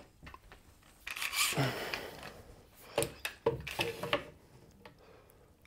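Axminster Trade parallel jaw clamp being fitted across a glued-up box: the sliding jaw scrapes along the steel bar, with a few sharp clicks and knocks about three seconds in as the jaws meet the wood.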